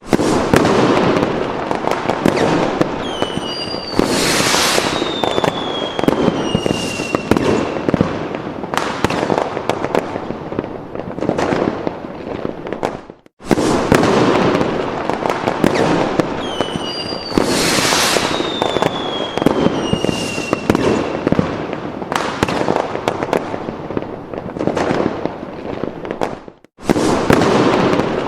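Fireworks sound effect: dense bangs and crackling, with whistling rockets gliding down in pitch. The same sequence breaks off briefly and repeats about every 13 seconds.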